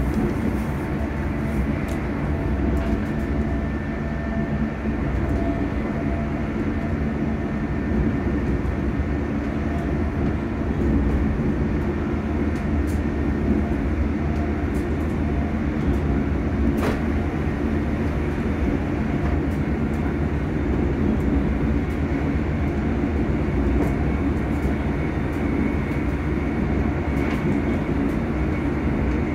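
Hitachi-built ScotRail Class 385 electric multiple unit running along, heard from inside the carriage: a steady rumble of wheels and running gear with a whine from the traction motors. A single sharp click sounds a little past halfway through.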